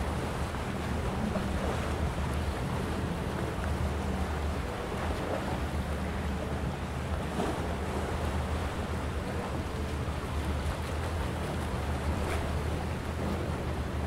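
Calm sea washing against a rocky shore, with a few small splashes over a steady low rumble.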